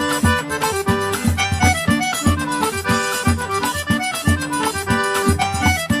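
Instrumental background music with a steady beat.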